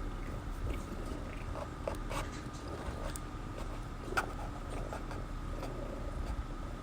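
A cat's low, steady purring rumble, with a few scattered small clicks and mouth noises on top; the sharpest click comes about four seconds in.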